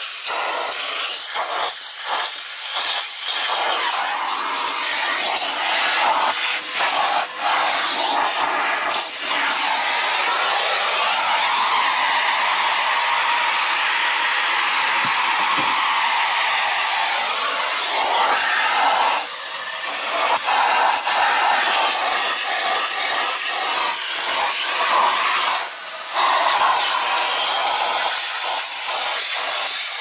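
Numatic Henry vacuum cleaner running, sucking air through its hose and nozzle along car seats and interior trim. The rush of air shifts in tone as the nozzle is pressed against surfaces and lifted off, with brief dips a couple of times.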